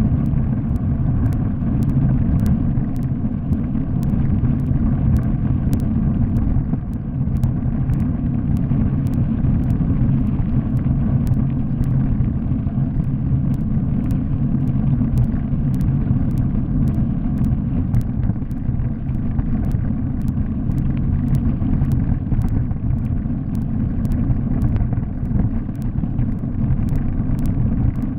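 Steady, muffled rumble of bicycle tyres rolling fast over a gravel road, mixed with wind buffeting, heard through a GoPro action camera.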